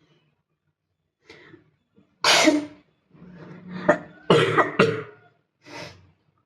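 A woman coughing in a fit of about five harsh coughs with short gaps between them, the loudest about two seconds in. The coughing is set off by the pungent fumes of spicy food cooking, which she says burn her eyes and throat.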